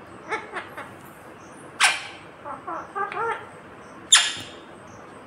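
Rose-ringed parakeet (Indian ringneck) chattering in short, bending, talk-like notes, with two loud, sharp squawks about two seconds and four seconds in.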